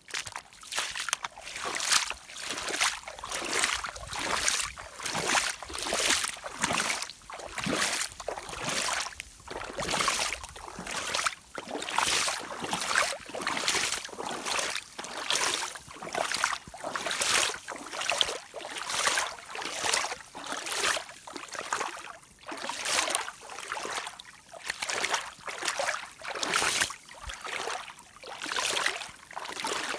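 Rubber rain boots moving through water in a steady rhythm, about two swishing splashes a second, as the mud is washed off them; the water is deep enough to pour in over the top of the left boot.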